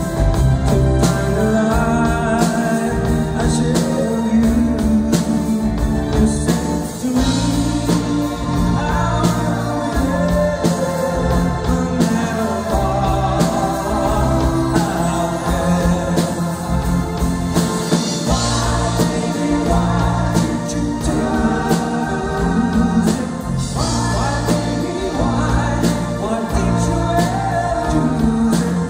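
Live band playing a song: singing over acoustic and electric guitars and a rhythm section.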